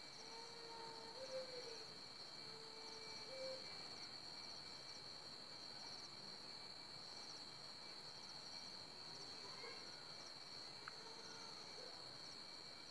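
Faint, steady, high-pitched insect chirring in the background, with a few soft low whistled notes in the first few seconds.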